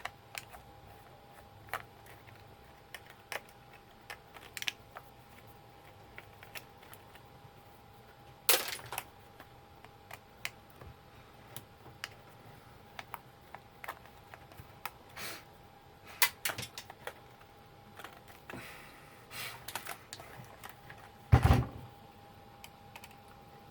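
Scattered clicks and small knocks of plastic and metal parts being handled and set down while taking apart a label-making machine, over a faint steady tone. There is a louder clatter about eight seconds in and a heavier knock with a low thud near the end.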